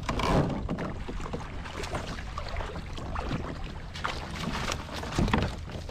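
Water splashing as a hooked fish thrashes at the surface beside a kayak and is scooped up with a landing net, with wind rumbling on the microphone.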